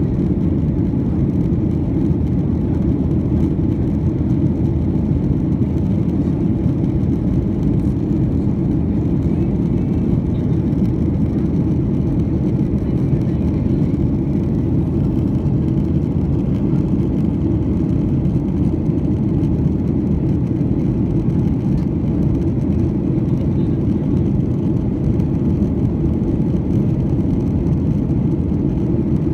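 Cabin noise of a Boeing 737-900 in flight, heard from a window seat over the wing: a steady, low rush of its CFM56 turbofan engines and the airflow along the fuselage.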